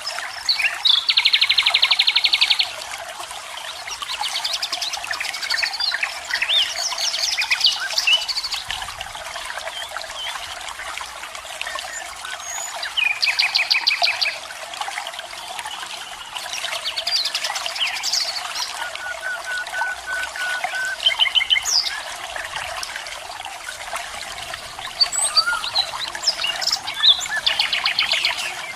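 A waterfall's steady rush of water, with several birds calling over it: rapid trills lasting about two seconds near the start, in the middle and near the end, and scattered chirps and whistles between them.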